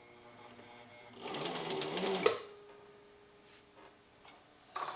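Viking Husqvarna 6010 sewing machine running in a short burst of about a second, its motor speeding up slightly, then stopping with a click; this machine's drive belt has been slipping. A faint hum lingers afterwards and another click comes near the end.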